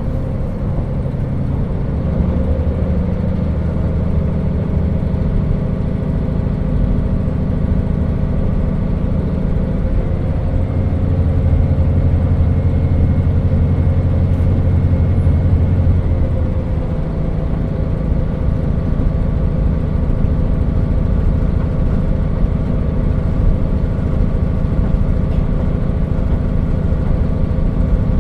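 KiHa 40 diesel railcar running, its diesel engine pulling with a steady low drone. About halfway through, the engine note drops back and the car runs on with a lighter engine sound and running noise.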